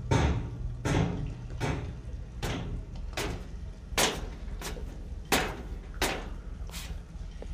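Hard-soled footsteps walking at a steady pace, about one step every 0.7 seconds, a few heel strikes louder than the rest, over a low steady hum.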